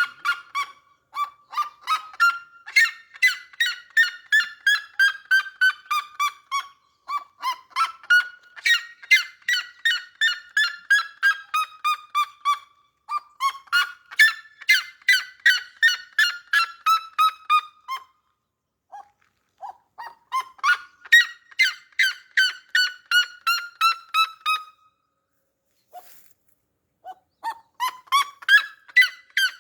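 A bird calling in long runs of rapid, evenly repeated notes, about four a second. Each run lasts several seconds, rising briefly and then falling slowly in pitch. The runs repeat with short pauses between them, the longest about two-thirds of the way in.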